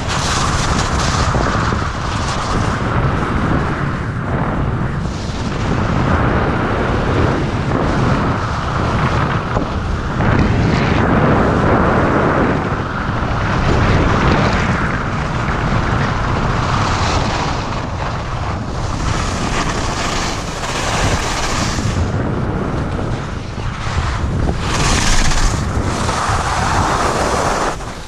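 Loud wind rushing over an action camera's microphone during a fast downhill run on a ski slope, mixed with the hiss and scrape of sliding on packed snow, swelling and easing every few seconds.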